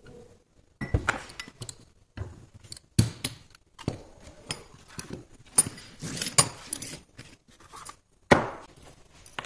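Metal gears, shafts and frame parts of a teaching-model differential clinking and knocking as they are handled and set down on a cloth-covered table, with a string of separate knocks and the loudest one near the end.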